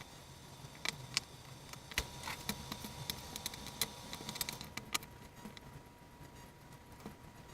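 Small hard parts clicking and clinking as they are handled, with a busy run of quick clicks and light jingles over the first five seconds that thins to a few scattered clicks.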